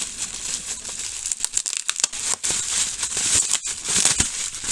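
Plastic bubble wrap crinkling and rustling as hands pull it open and unwrap a toy, a steady crackle with many small sharp clicks.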